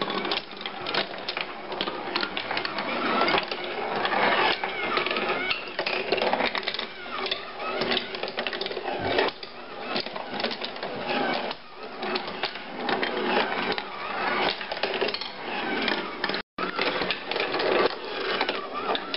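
Handmade wooden marble machine running: steel marbles rolling and rattling along wooden tracks, with a steady stream of clicks and knocks as they drop and strike the wood.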